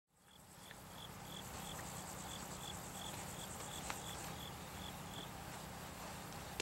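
Crickets or similar autumn insects chirping in the trackside grass: an even series of short, high chirps, about three a second, that stops a little after five seconds in, over a finer high trill and a steady low background rumble.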